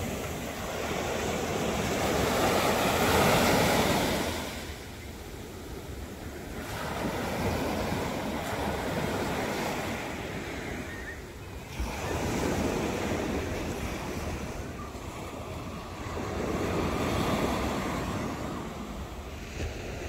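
Small sea waves breaking and washing up a sandy beach, the surf swelling and fading four times. Wind buffets the microphone underneath.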